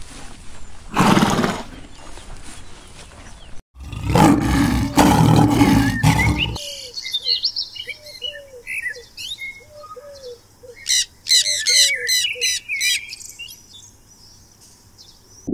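A horse's call about a second in, then a lion roaring from about four seconds in. After that, birds chirp with a repeated short arched note and bursts of quick high chirps.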